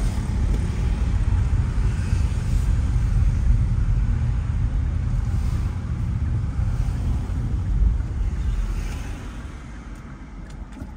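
Low road and engine rumble inside the cabin of a moving car, with tyre noise, growing quieter near the end as the car slows.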